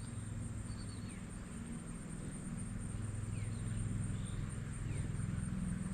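Riverside outdoor ambience after rain: a steady high insect drone, a low pulsing hum underneath, and a few short bird chirps.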